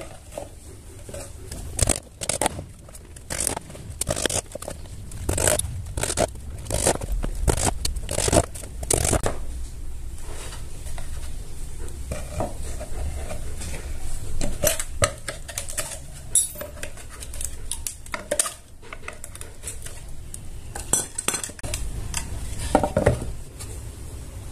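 Hammer knocking small nails into a plywood speaker box: a run of sharp, irregular strikes, densest in the first half and more scattered later, with plywood panels knocking together as they are handled.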